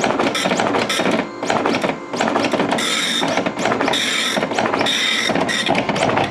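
Okidata Pacemark 3410 9-pin dot matrix printer printing a test page in graphics mode: the impact print head makes a rapid rasping buzz as it passes along each line. From about three seconds in, a harsher, higher burst comes about once a second.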